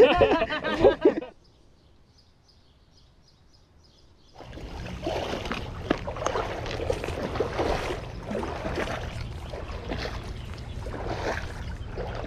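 Irregular water sloshing and splashing that starts suddenly about four seconds in, after voices and a few seconds of near silence.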